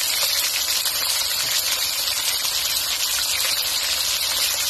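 Marinated pork and chicken pieces sizzling in hot oil in a nonstick wok, a steady hiss with a few small crackles, as the meat browns before the sauce is added.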